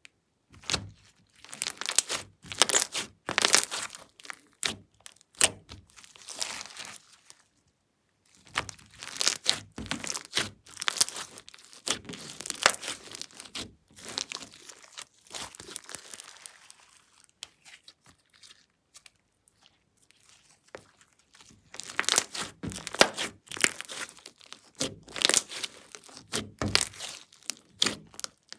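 Glossy slime with eyeshadow mixed in being stretched, squished and kneaded by hand, making dense sticky crackles, clicks and pops of trapped air. It comes in three spells, with a short pause about eight seconds in and a quieter stretch a little past the middle.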